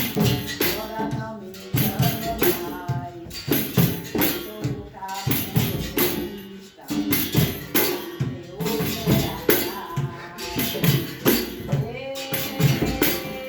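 Capoeira roda music: a berimbau with tambourine strikes keeping a steady rhythm, and voices singing over it.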